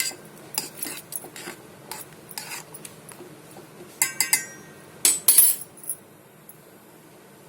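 Metal spoon clinking and scraping against a metal pot while stirring crushed black pepper into a simmering herbal decoction, with the loudest ringing clinks about four and five seconds in.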